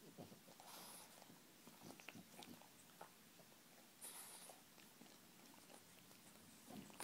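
French bulldog licking and chewing at its own paw: faint wet licks and small mouth clicks, with a couple of short hissing bursts about a second in and again about four seconds in.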